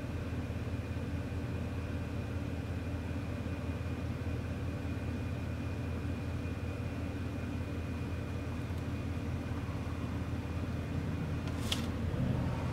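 Strong wind buffeting the microphone as a steady low rumble, over a steady high whine from the Dash 8 Q400's turboprop engines at takeoff power. The whine fades out near the end, followed by a single sharp click.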